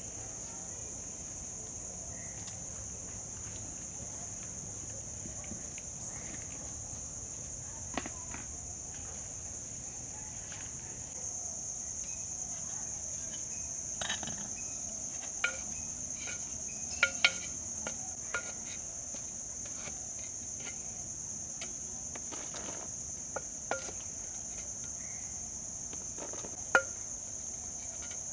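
A steady, high-pitched insect chorus of crickets or cicadas, a second, higher-pitched layer joining about a third of the way in. A handful of sharp clicks or taps come through it, the loudest a pair about two-thirds of the way through.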